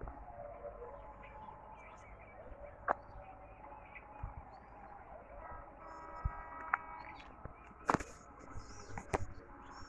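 Outdoor ambience with birds chirping now and then, broken by a few sharp knocks, the loudest about eight seconds in. A faint steady tone with several pitches sounds for a second or so around the middle.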